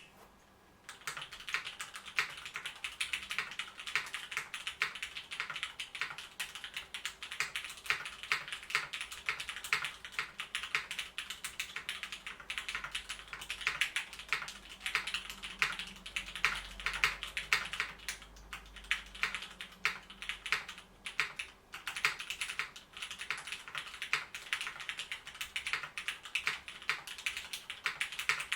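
Continuous fast typing on a custom mechanical keyboard with lubed Cherry MX Black linear switches with Milky Tops and GMK Dualshot keycaps, an even stream of keystroke clacks. The typing starts about a second in and pauses briefly near the two-thirds mark.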